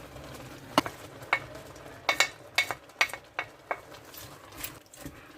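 Metal cooking utensil clinking and scraping against a kawali while pancit noodles and vegetables are stirred: about a dozen irregular ringing taps, thinning out near the end.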